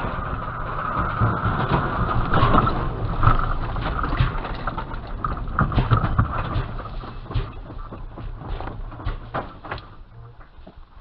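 A bicycle and a dirt bike colliding head-on: one sharp crash right at the start, then a jumble of knocks, rattles and scrapes from the tangled bikes over a low rumble, dying down near the end.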